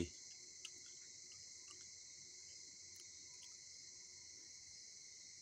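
Faint, steady chorus of insects, a continuous high-pitched chirring with a fainter steady tone beneath it.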